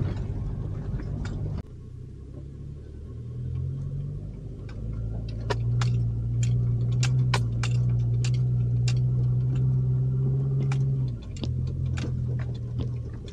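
Truck engine running with a low steady hum, heard from inside the cab while driving a rough, rocky dirt trail, with frequent sharp clicks and rattles of loose items jostling over the bumps. The engine gets louder about five seconds in and drops back near the end.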